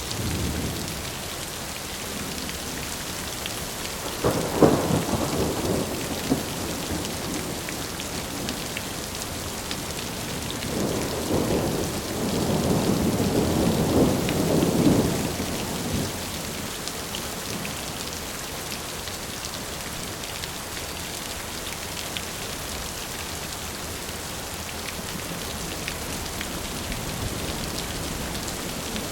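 Steady rain falling, with two rolls of thunder: a short one a few seconds in and a longer one about halfway through.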